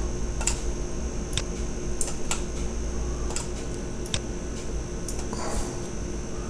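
Scattered clicks of a computer keyboard and mouse, about half a dozen at irregular intervals, over a steady hum and hiss from the recording setup.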